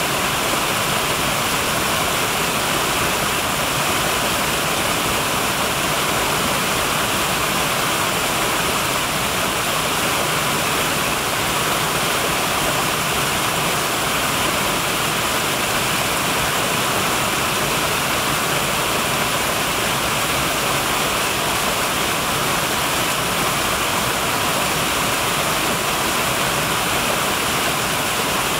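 Two small woodland cascades pouring over mossy rocks into a shallow pool: a steady, even rush of falling water that does not change.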